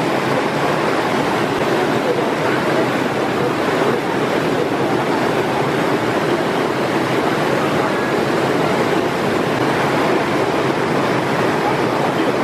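Stream waterfall cascading down a narrow rock chute: a steady rushing of white water.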